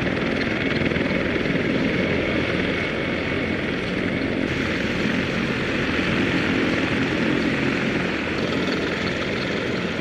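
CH-53E Super Stallion heavy-lift helicopter running steadily, a dense continuous engine and rotor noise.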